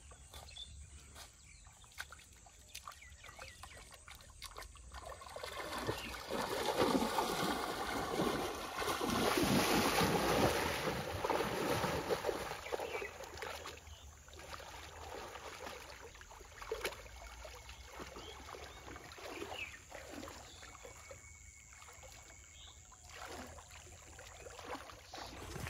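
Splashing of a person wading fast through shallow, muddy pond water. It builds about five seconds in and is loudest for the next several seconds, then settles into quieter, uneven sloshing and small splashes as hands grope through the water.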